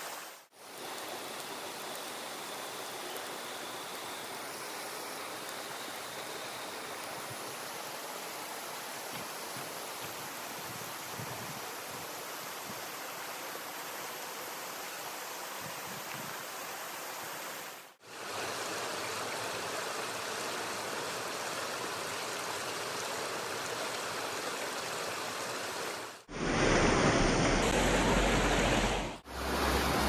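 A rocky mountain stream rushing steadily: an even wash of water noise. It drops out briefly at cuts about half a second in, past the middle and near the end, and gets noticeably louder over the last few seconds.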